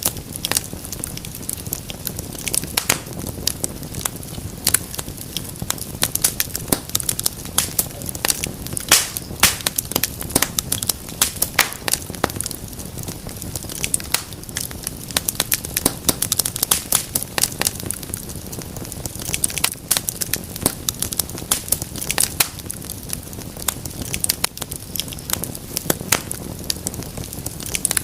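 Wood fire crackling steadily in a fireplace: frequent sharp irregular pops and snaps over a low rumble of the flames.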